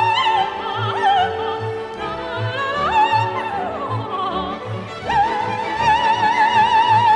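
Operatic soprano singing a csárdás aria from an operetta with orchestra accompaniment: quick runs up and down, then a long high note held with wide vibrato from about five seconds in, over a regular bass pulse.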